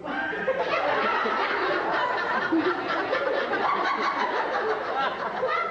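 Audience laughing, breaking out suddenly and carrying on throughout.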